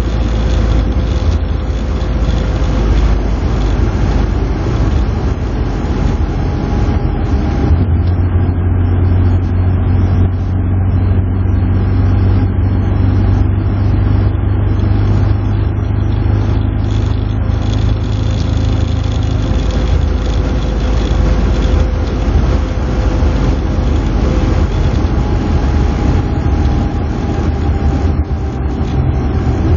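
Moskvitch 412's four-cylinder engine and tyre noise heard from inside the cabin while cruising along a road. The engine gives a steady drone that deepens and strengthens from about eight seconds in until about twenty seconds in.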